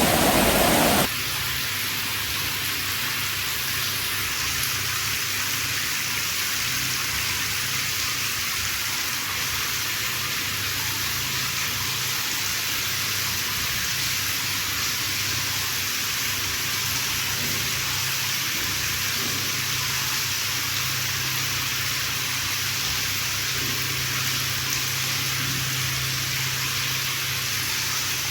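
Heavy rain falling in a steady, even hiss. About a second in, a louder, fuller rush of running water cuts off abruptly, leaving the rain alone.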